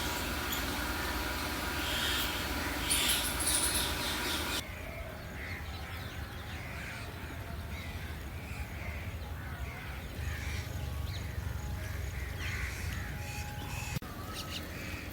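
Outdoor ambience with many birds calling in short repeated calls. For the first four and a half seconds a louder, even rushing noise covers them, then cuts off suddenly.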